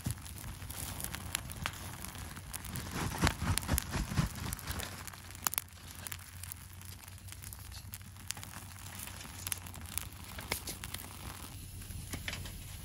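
Wood campfire crackling and popping, with a dense run of louder pops about three to four seconds in.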